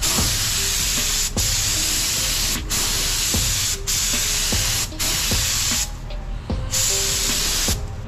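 Compressed-air gravity-feed spray gun (Harbor Freight Central Pneumatic) spraying primer in bursts of about a second as the trigger is pulled, with short breaks between passes and a longer pause about six seconds in.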